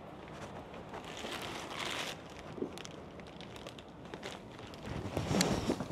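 Paper takeout bag rustling and crinkling as it is handled, with a few light knocks. It grows louder near the end.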